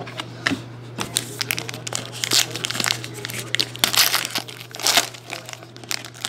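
A trading card pack's wrapper being pulled open and crinkled by hand: a run of crackling rustles that starts about a second in, is loudest in the middle and thins out near the end.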